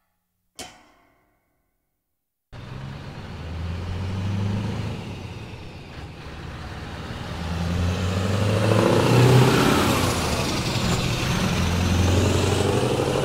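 A short knock, then silence, then from about two and a half seconds in a heavy truck engine running and revving, its pitch rising and falling.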